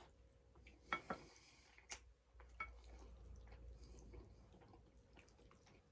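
Faint, close-miked eating sounds: chewing creamy pasta, with a few soft clicks about a second in and again near two seconds, and a wooden utensil scooping pasta on the plate.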